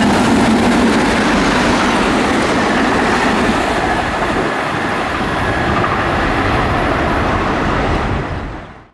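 Passenger train passing close by, a loud steady noise of wheels running on the rails, fading away quickly near the end.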